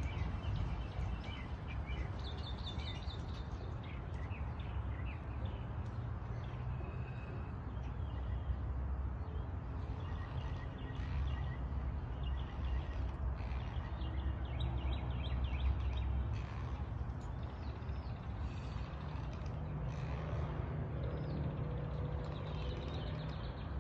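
Outdoor ambience: birds chirping in short trilled series, over a steady low rumble.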